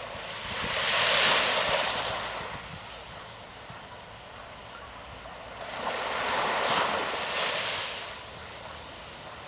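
Ocean waves breaking on the shore: two waves wash in, one about a second in and another around six to seven seconds in, each swelling and fading over a couple of seconds.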